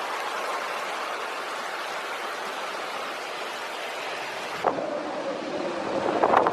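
Floodwater rushing, a steady noise. About four and a half seconds in it cuts abruptly to a different recording, with a faint hum and a rush that swells near the end.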